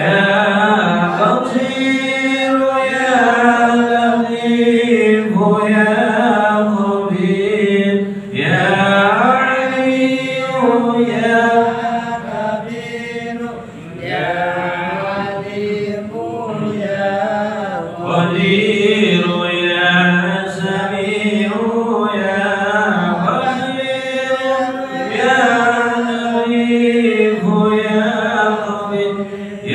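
Voices chanting an Arabic dhikr in a slow, melodic sung chant, in long phrases with brief pauses between them.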